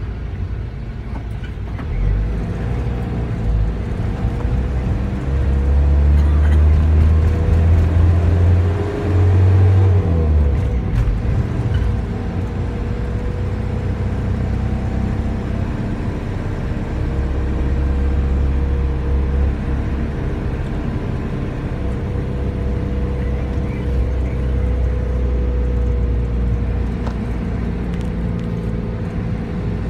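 Engine and road noise heard inside a moving vehicle's cabin: a deep rumble that swells for a few seconds as it gets under way, then drops in pitch about ten seconds in. A faint steady whine runs underneath.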